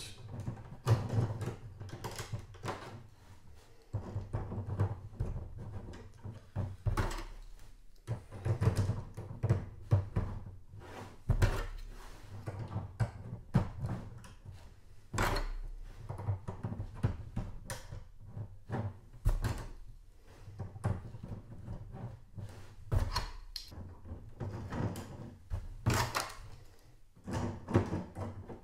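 Plastic LEGO pieces being handled and snapped into place: transparent flag pieces clipped onto a black Technic-beam frame, giving irregular sharp clicks and dull knocks against the table.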